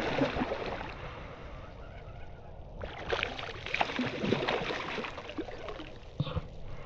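Water lapping and gurgling around a kayak, with small scattered clicks and knocks that become busier about three seconds in.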